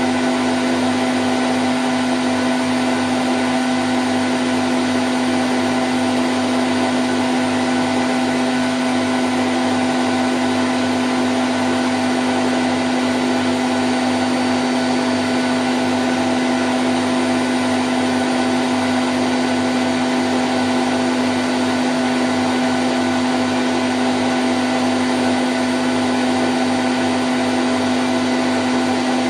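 Candy Grand O' F106 washing machine in its spin cycle at 1000 rpm: a steady, unchanging hum with one strong low tone and fainter higher tones over an even whooshing noise.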